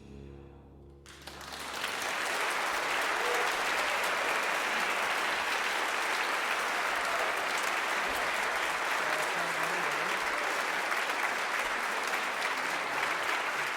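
The band's last low note fades out, and about a second in an audience breaks into steady applause that continues throughout.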